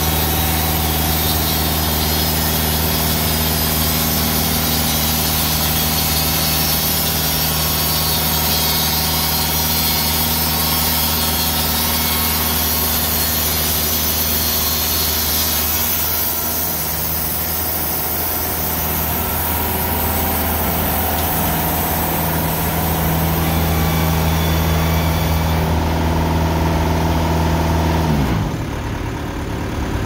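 Engine-driven TimberKing band sawmill running steadily while its blade cuts through two pine logs at once, with a high hiss from the cut that eases about halfway through. Near the end the engine throttles down, its pitch dropping sharply.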